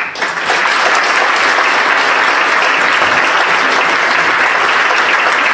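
Large audience applauding, breaking out all at once and holding steady and loud.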